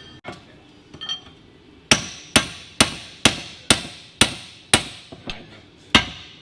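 Hammer striking metal on an anvil in a blacksmith shop: a couple of light taps, then a steady run of about nine ringing blows, roughly two a second.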